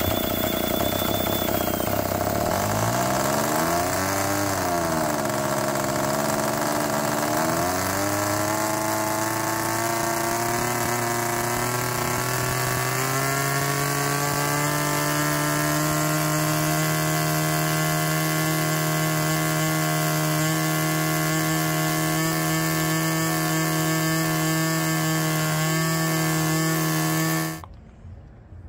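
Two-cylinder two-stroke model aircraft engine, fitted with its original Fox-made cylinder liners, running on a test stand and turning a three-blade propeller. Its pitch dips and recovers a few seconds in, then climbs over several seconds to a steady high speed that holds until the sound cuts off abruptly near the end.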